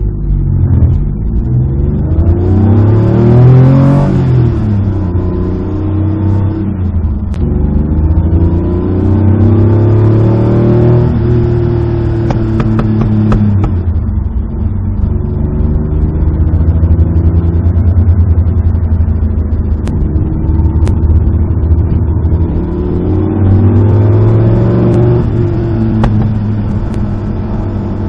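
Lancia Stratos replica's Alfa Romeo Busso 3.0-litre V6 pulling hard through the gears, engine and exhaust note climbing in pitch and dropping back at each gear change several times, with a steadier stretch of cruising in the middle.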